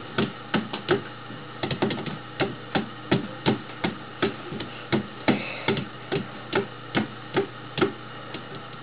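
Cartoon sound effect: a quick series of short knocks, about three a second, each with a brief ringing tail, heard from a TV's speaker.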